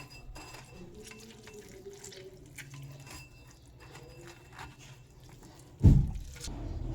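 Water dripping and splashing, heard as scattered small ticks. A sudden loud thump comes near the end, after which the water sound is steadier and louder.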